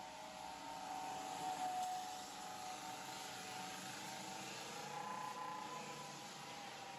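Floor sander running, a steady motor whine over a faint hiss.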